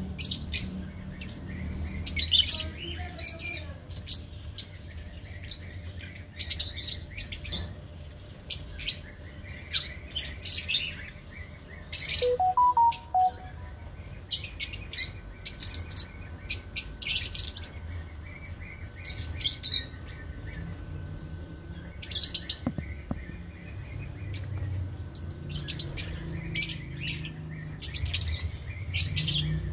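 Lovebirds chirping: many short, shrill chirps in quick clusters, on and off throughout, over a low background hum.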